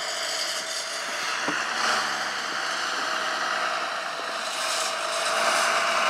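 Tractor engine running steadily while it clears deep drifted snow, under a noisy wash of wind on the microphone.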